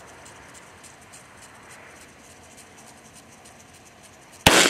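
Faint steady background hiss, then near the end a single sharp rifle shot from a Franklin Armory F17-L AR-15 chambered in .17 Winchester Super Magnum rimfire, with a short echo trailing after it.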